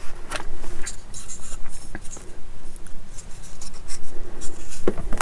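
Small plastic model-kit parts being handled and fitted together: light scratching and rubbing with scattered small clicks of plastic on plastic, and a sharper knock near the end.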